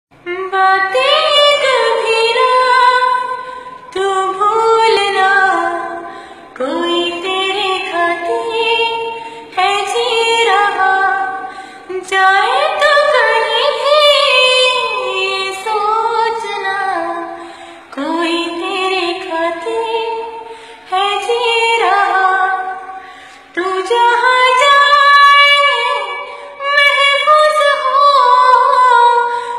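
A woman singing a Hindi song without accompaniment, in short melodic phrases of a few seconds each with sliding notes and brief pauses for breath between them.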